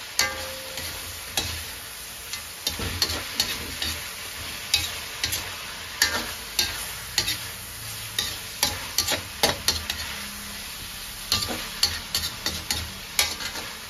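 Metal spatula scraping and knocking against a metal wok in irregular sharp clacks, as fried milkfish is turned through sautéing aromatics. A steady sizzle of the frying runs underneath.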